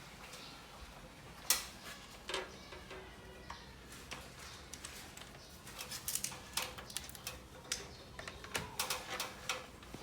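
Scattered clicks and small taps of a screwdriver and wires being worked at the ELCB's terminals while the neutral wire is fitted: a sharper click about a second and a half in, another shortly after, and a quick run of small clicks in the second half.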